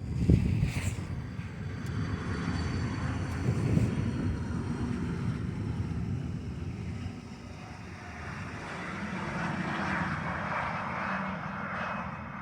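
Pilatus PC-24 twin-turbofan business jet landing: jet engine rumble with a thin high whine on top, easing about two-thirds through and swelling again near the end.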